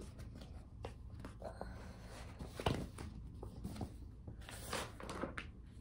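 Faint paper rustles and a few soft knocks from a picture book being handled and its pages turned.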